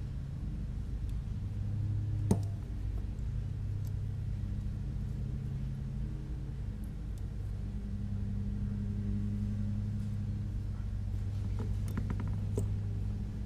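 Small carbon-fibre drone frame parts handled on a silicone work mat: a sharp tap about two seconds in and a few light clicks near the end, over a steady low hum.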